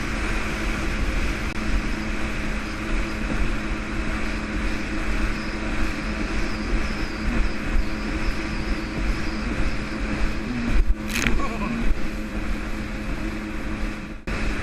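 Jet ski engine running steadily under way, with a rush of wind and water over the microphone. There is a brief sharp knock about eleven seconds in.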